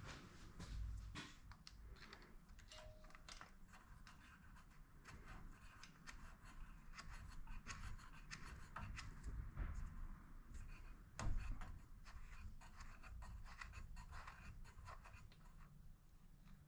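Faint scratching, rubbing and clicking of hands working the snowblower engine's dipstick and oil fill cap to check the oil level, with one sharper click about eleven seconds in.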